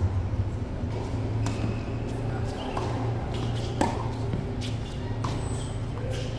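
Tennis ball struck by rackets during a rally: several sharp pops roughly every one to one and a half seconds, over a steady low hum.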